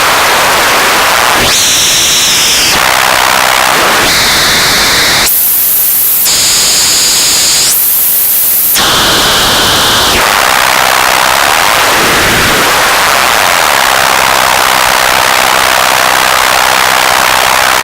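Loud radio static, a crackling interference hiss, broken by a string of brief steady high whistles and bursts of harsher, thinner noise, like a radio passing through stations and interference. It cuts off suddenly at the end.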